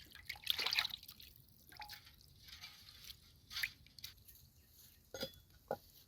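Water dripping and splashing in small irregular bursts, with a few sharp clicks near the end.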